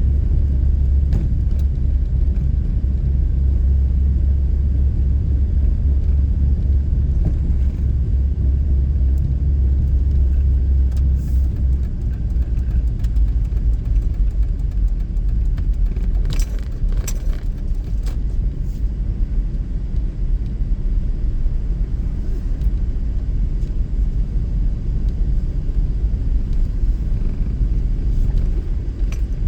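Steady low rumble of a car driving, as heard from inside the cabin, easing slightly about twelve seconds in. A few faint clicks come partway through.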